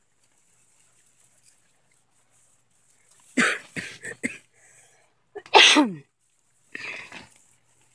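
A person coughing in three short bouts about a second apart, the loudest just past halfway, with a falling vocal tail.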